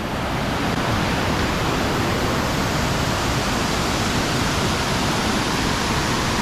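Waterfall cascades rushing steadily, a loud even roar of falling water.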